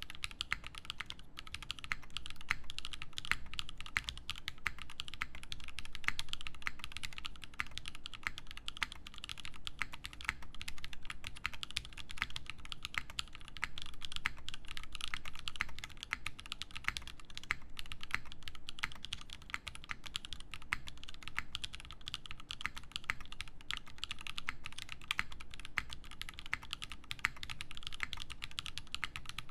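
Continuous fast typing on an Iron165 mechanical keyboard with Krytox-lubed Zaku switches, a carbon fibre plate and GMK Beta keycaps: a dense, steady stream of keystroke clacks.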